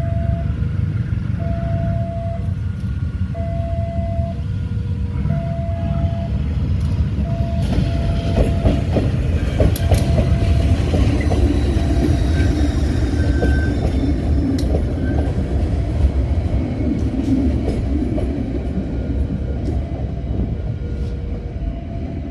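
CC203 diesel-electric locomotive running during shunting, with a deep steady rumble. From about eight seconds in, wheels click over rail joints and points and squeal. Throughout, a two-tone electronic warning signal beeps in alternating high and low notes about once a second.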